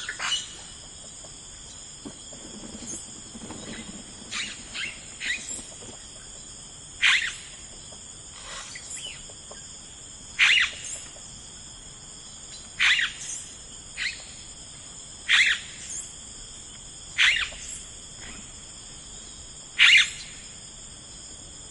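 Birds calling outdoors: a short, falling call repeated about every two to three seconds, over a steady high chorus of insects such as crickets.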